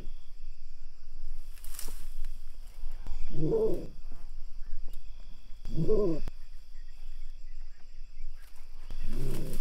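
A low animal call, a single rising-and-falling note, heard three times a couple of seconds apart, over a steady high drone of insects.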